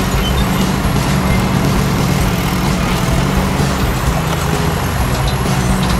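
Mini excavator engine sound effect running steadily as the tracked machine climbs a ramp, a continuous low, even drone.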